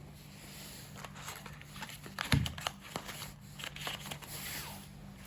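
Handling noises: rustling and a series of clicks and light knocks, the loudest about two seconds in, over a steady low hum.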